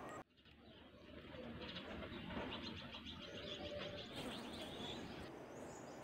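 Budgerigar chattering: a run of rapid, high chirps and warbles that starts about a second and a half in and stops about five seconds in.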